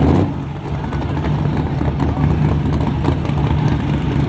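Vehicle engine idling with a steady low rumble.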